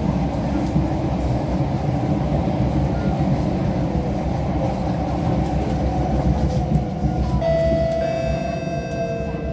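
Subway train running, a steady dense rumble heard on board. Near the end a high whine joins in, its pitch slowly falling.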